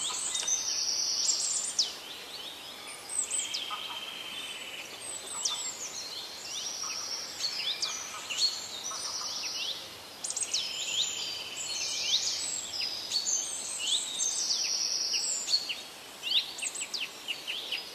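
A chorus of small birds, with many short high chirps sliding down in pitch and buzzy trills overlapping throughout.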